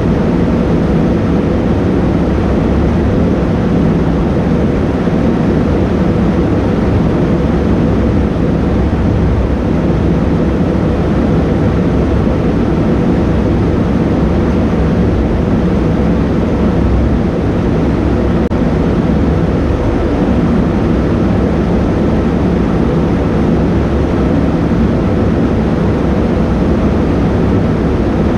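Steady low rumble of a paint spray booth's air system, with the hiss of a compressed-air spray gun spraying a car bumper.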